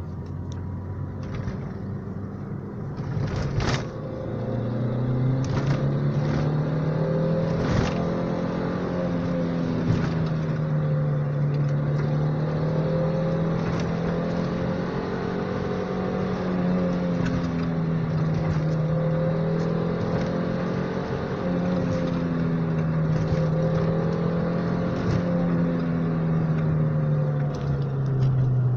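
Opel Vectra GT's 2.0-litre four-cylinder engine heard from inside the cabin while driving, its note climbing about four seconds in and then rising and falling slowly with engine speed, with a few sharp clicks.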